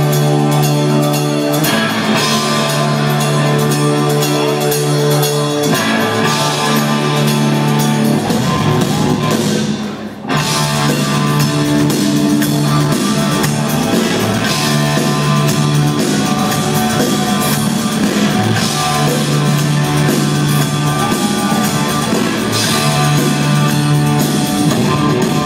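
Live rock band playing through a venue's PA: electric guitars, keyboards and drums, with sustained low notes under the music. The music briefly drops away about ten seconds in, then comes back.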